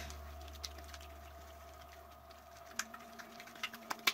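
Still-sticky pink glitter slime being kneaded by hand: faint wet clicks and squelches as it sticks to and pulls off the fingers, coming more often near the end.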